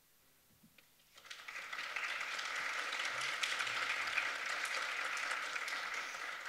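Audience applauding, a dense clatter of many hands that begins about a second in, right after a piano piece ends, and holds steady for several seconds.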